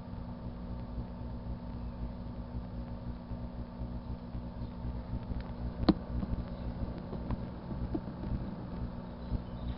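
A 1984 Kenmore microwave oven running: a steady low electrical hum with fan noise as it heats crayons. A sharp click about six seconds in, followed by a few fainter ticks.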